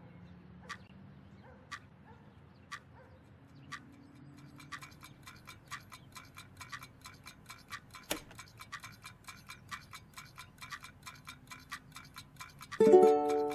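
Clock-like ticking, about one tick a second at first, then quickening to about three a second over a faint low hum, with one louder click near the middle. Near the end a loud plucked-string chord comes in.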